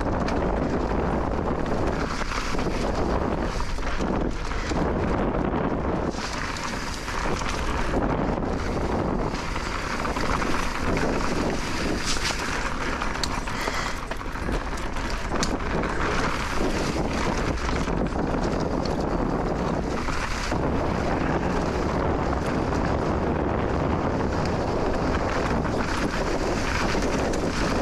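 Wind rushing over the microphone of a moving electric mountain bike, with frequent small rattles and knocks from the bike on the trail.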